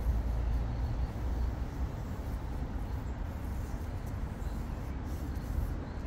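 Steady low rumble of urban background noise, with no distinct events standing out.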